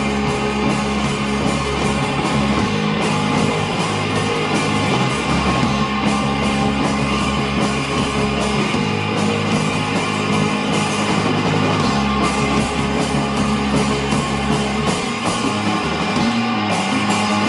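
Rock band playing live: electric guitars, electric bass and drum kit in a loud, driving instrumental passage without vocals.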